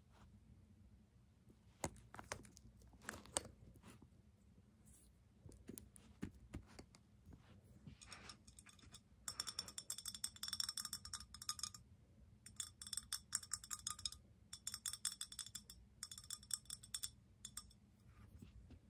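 Scattered clicks, then, about nine seconds in, several bursts of rapid clinking and rattling of small hard objects, each lasting one to two seconds, with a high ringing tone.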